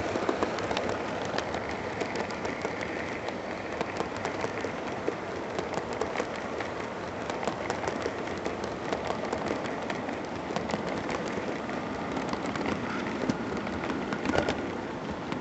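Model train of coal hoppers rolling past close by: a steady rattling rumble of wheels on track, with many fine clicks as the wheels cross the rail joints.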